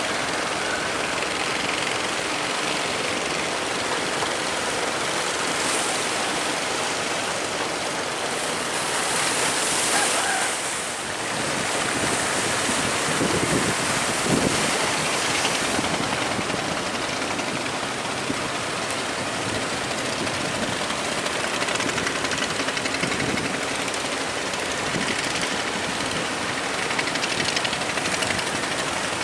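Steady rushing noise of wind and heavy sea around a ship, with wind buffeting the microphone.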